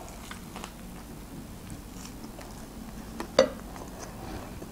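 A person chewing a bite of sliced meat with the mouth closed, with faint wet mouth clicks and one sharper click about three and a half seconds in.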